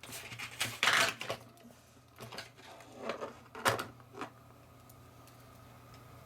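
Plastic and foam packing being handled as a model locomotive is taken out of its box: irregular rustling and scraping with a sharp click a little before the middle, then quiet.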